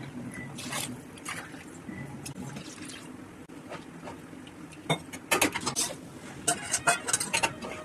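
Kitchen utensil noise: a spoon or ladle scraping and knocking against cookware, with a run of sharp clatters in the second half.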